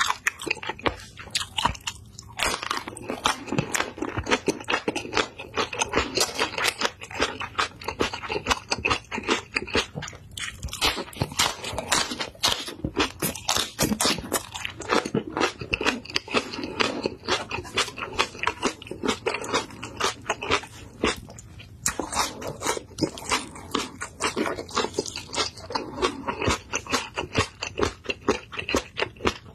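Close-miked mouth sounds of biting and chewing crunchy green chili kimchi, a whole fresh green chili pepper coated in red seasoning: rapid, wet crunches that go on almost without a break, easing off briefly three times.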